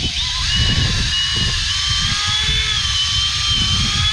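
Cordless drill with a 12-inch aircraft drill bit boring through a wooden boat hull, its motor whining steadily under load, the pitch wavering slightly.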